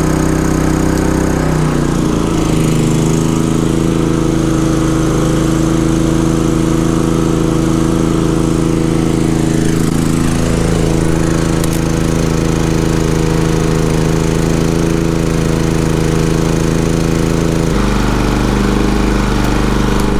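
Champion 3400 dual-fuel inverter generator running on propane under the load of a 13,500 BTU RV air conditioner. About two seconds in, its engine drops to a lower steady speed as it is switched into eco mode. Its note shifts again near the end.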